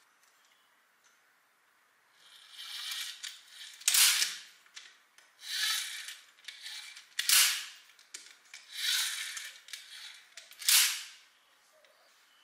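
LEGO Technic rubber-band firing mechanism on an EV3 large motor being cycled three times. Each time a grinding wind-up of about a second and a half ends in a sharp snap.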